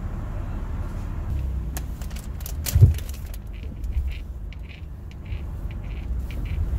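Car engine idling, heard as a steady low rumble inside the cabin, with handling clicks and light rustling and one louder thump about three seconds in.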